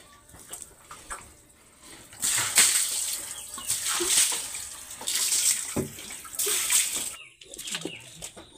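Water dashed from a container over a pig and onto the concrete floor of its pen, splashing in about four separate dousings.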